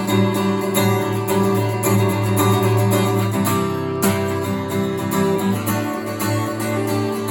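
Bulldog D-4 solid-wood dreadnought acoustic guitar, strung with Ernie Ball Rock & Blues 10–52 strings, strummed in steady rhythmic chords that ring on between strokes, with a dry tone.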